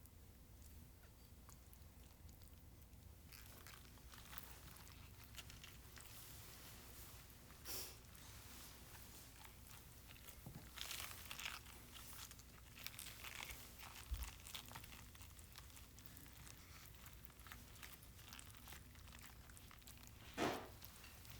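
Faint, scattered handling sounds: soft rustling and a few louder, brief crisp crunches.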